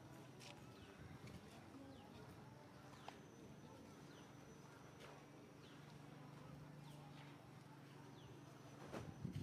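Near silence: faint outdoor ambience with a few short, faint chirps and light scattered clicks, busier near the end.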